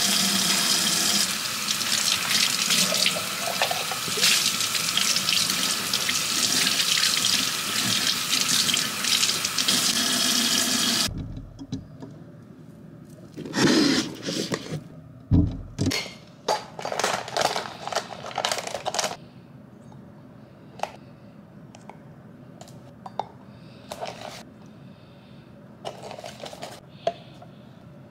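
Kitchen tap running steadily into a stainless steel sink, shut off abruptly about eleven seconds in. Then scattered knocks and taps as a formula box and glass baby bottles are handled on the counter.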